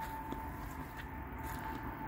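Low steady rumble of traffic from a busy road, with a thin steady high tone running over it and a few faint light clicks.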